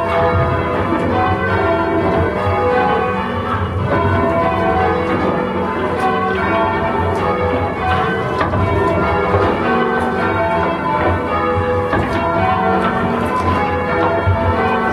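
Ring of five church bells, an 1854 Taylor ring with a tenor of 14-1-9 in E, rung by hand from the ropes and heard from inside the ringing chamber: a continuous stream of overlapping bell strikes.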